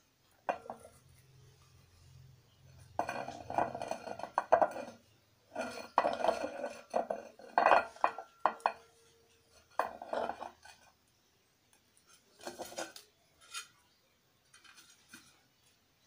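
Washing-machine pulley plate parts being handled, scraped and greased by hand, in several irregular bursts of clatter and scraping, with a brief thin squeak a little past halfway.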